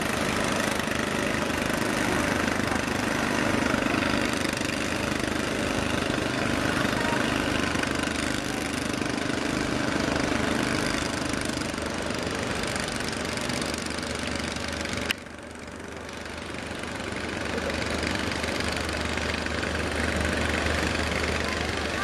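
Wooden fishing boat's engine running with a steady low thrum over the wash of surf. The sound drops sharply about two-thirds of the way through, then builds again as the engine grows louder.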